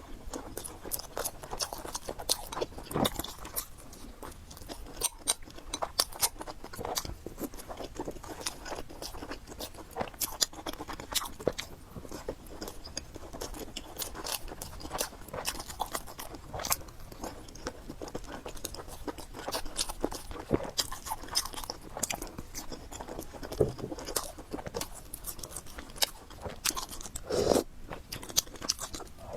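A person eating spicy fried noodles with pork close to the microphone: continuous chewing with crunchy bites and many quick mouth clicks.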